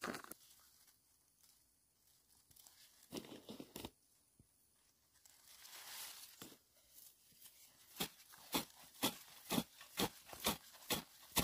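Plastic bag crinkling and granular fertilizer being scattered onto bare soil, then a hoe chopping into the dirt, sharp strokes about twice a second through the last third.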